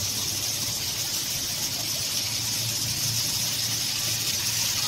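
A steady hiss with a low hum underneath, unchanging throughout.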